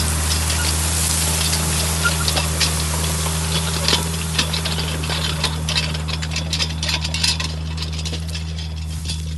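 Tractor engine running steadily under dense crackling and snapping of dry tussock grass stems being crushed by a tractor-drawn colonizador. The crackling thins out near the end.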